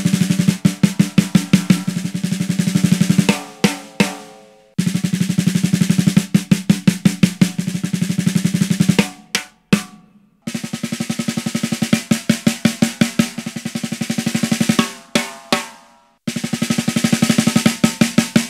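Snare drum played in short phrases of rapid strokes, each phrase ending in a few separate hits, first with its internal felt dampener off and a strong low ring. About ten seconds in, the dampener is pressed against the batter head and the low ring is weaker.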